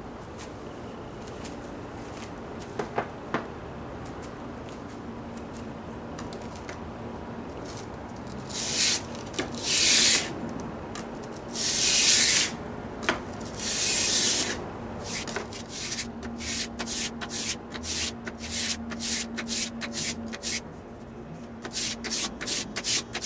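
Stanley Bailey No. 7 plane iron in a honing guide being rubbed back and forth on 220-grit wet/dry sandpaper over glass, to regrind the bevel. Each stroke makes a rasping scrape. A few long strokes start about eight seconds in, then quicker short strokes follow, about two to three a second. Before that there are a few light clicks.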